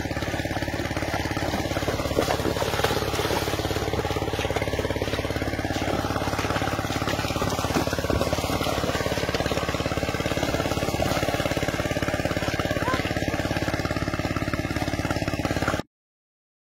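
A small engine running steadily at an even speed, cutting to silence near the end.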